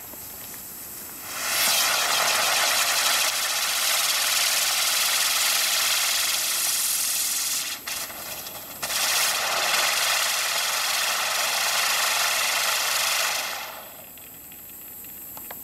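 Ground-level firework fountain burning: a steady hiss with a dense crackle that starts about a second in, falters briefly about halfway, then dies away near the end.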